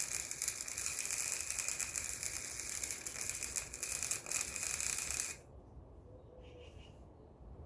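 Harbor Freight Chicago Electric MIG welder's arc crackling and sizzling steadily as it runs a bead on steel C-channel, then cutting off suddenly about five seconds in. The owner finds this welder not quite powerful enough to penetrate the channel properly.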